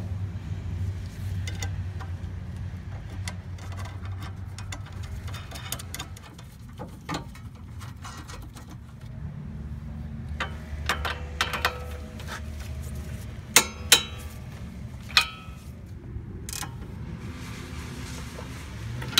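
Hand tools tightening the nuts on sway bar end links: a ratchet clicking and metal tools clinking over a steady low hum, with three sharp, louder clicks about two-thirds of the way through.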